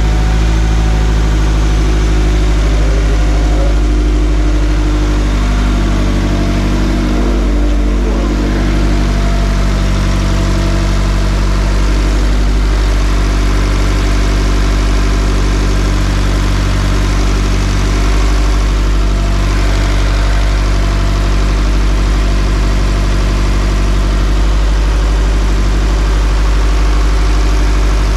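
Toyota 86's flat-four boxer engine idling steadily just after an oil and filter change, run to check that nothing leaks.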